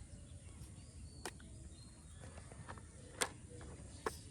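Faint background hiss with three light, sharp clicks, a couple of seconds apart, as small plastic toys are handled.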